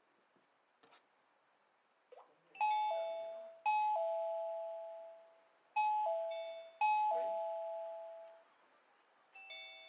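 DNAKE DK250 wireless doorbell kit chiming an electronic two-tone ding-dong, a higher note then a lower one that rings out and fades. It sounds twice, the second time a little quicker, and a third chime starts faintly near the end.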